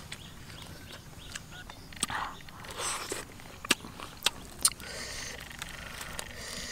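Sharp clicks and crackles of boiled quail eggs being peeled and chewed, with several louder snaps in the middle, over steady forest ambience.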